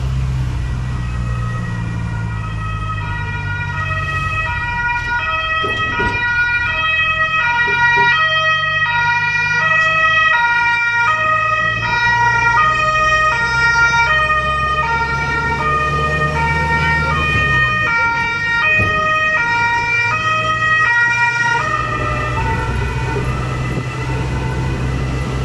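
A two-tone emergency-vehicle siren, switching between a high and a low note about every half second. It comes in a couple of seconds in, is loudest in the middle and fades out a few seconds before the end, over the low running of the tour bus's engine.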